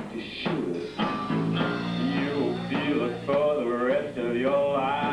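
Live rock band playing: electric guitar with pitch-bending lines over electric bass guitar.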